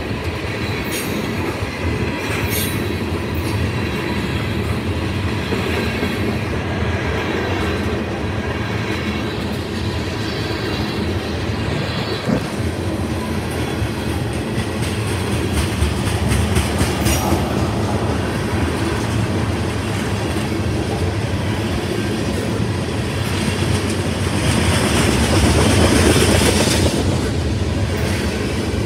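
Long freight train of tank cars rolling past: a steady rumble and clatter of steel wheels on the rails, with a few brief high wheel squeals. It gets louder for a few seconds near the end.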